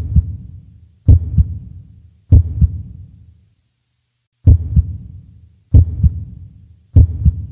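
Heartbeat sound effect: low double thumps, lub-dub, repeating about every 1.2 seconds, with one beat skipped near the middle.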